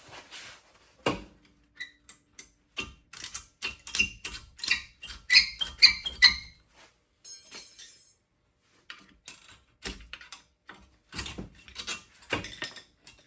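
Irregular metallic clinks and knocks of a brake caliper and a wire hanging hook being handled. The densest run of ringing clinks comes about four to six seconds in, with a lull just after.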